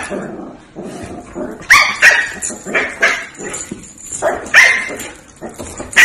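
Dog giving a run of short barks, several in a row, the loudest about two seconds in and near the end.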